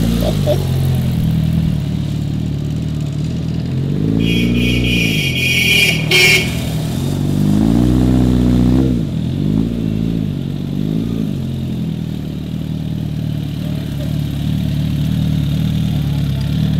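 Custom Suzuki Inazuma 750's inline-four engine running through an aftermarket exhaust, revving up and back down three times. A high steady tone sounds for about two seconds near the middle of the first rev.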